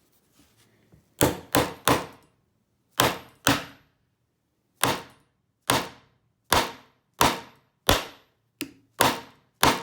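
About thirteen hard whacks, in irregular groups, from hammering a blade into the plastic body of a Federal lockout padlock to split it open. Each strike is a sharp crack that dies away quickly.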